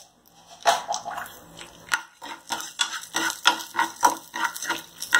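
Steel ladle stirring chana dal and urad dal in a nonstick frying pan: the ladle scrapes the pan and the dry lentils rattle, in quick irregular strokes starting about half a second in.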